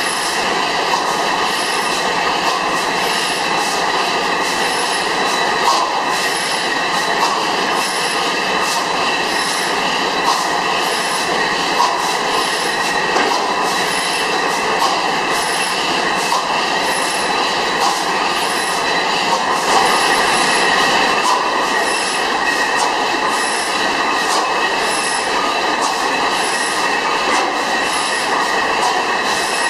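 300 hp Miller Improved stationary gas engine running steadily: a dense mechanical clatter with a faint sharp tick repeating about every 1.2 seconds and a thin steady high whine.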